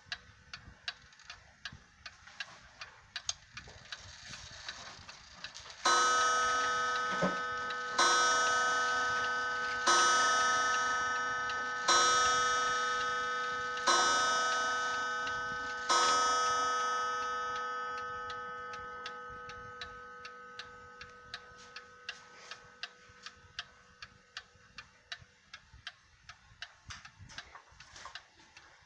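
1881 Ansonia cast iron mantel clock with an open escapement, ticking steadily, then striking the hour on its gong: six strokes about two seconds apart, each ringing on and slowly dying away. The hammer is set back from the gong so the strike is softened.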